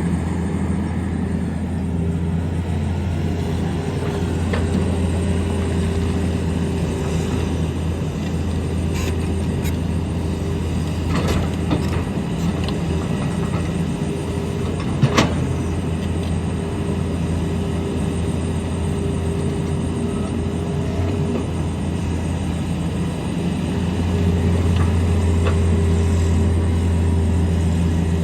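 Tata Hitachi excavator's diesel engine running steadily under work, with a few sharp knocks of rock or steel, the loudest about halfway through; the engine grows louder near the end.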